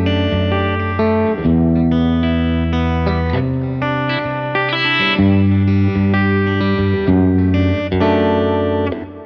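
Electric guitar played through a TubeTown JTM45 valve amplifier, a kit copy of the Marshall JTM45, with a mild crunch. It plays a run of ringing chords that change about every second, and the last chord fades out near the end.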